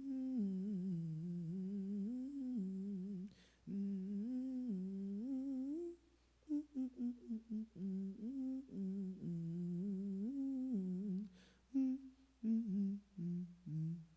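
A person humming a slow tune in long, gliding phrases, with shorter broken notes in the last few seconds.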